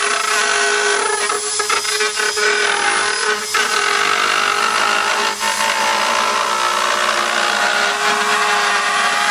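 Dremel rotary tool with a router bit running at high speed, cutting a round hole through the plastic wall of a tote. It makes a steady, high whine that falters briefly a few times in the first three or four seconds as the bit bites into the plastic.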